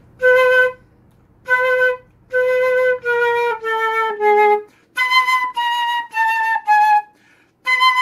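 A concert flute played with a clean, focused tone: short separate notes in the low register, three on one pitch and then stepping down, followed by a stepping-down phrase an octave higher. It demonstrates a steady, ordinary lip opening that keeps breathy wind noise out of the tone.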